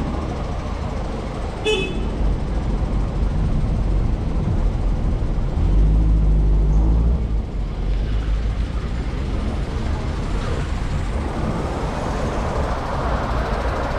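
Bus engine running with a steady low rumble, and a short horn beep about two seconds in. The engine grows louder and deeper for a couple of seconds near the middle.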